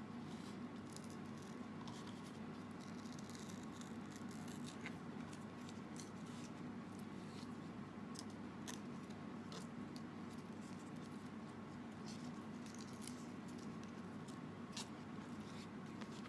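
Faint, scattered snips and clicks of a banana leaf being cut into a garnish design, over a steady low hum.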